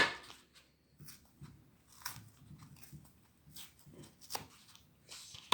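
A few sharp snips of cutting, with faint rustling of the material being handled between them.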